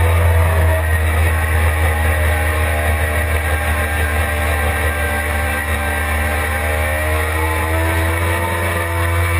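Suzuki GSX-R600's inline-four engine held at high revs under load through a fast corner, its pitch drifting slowly and climbing near the end, over a steady low rumble of wind noise at speed.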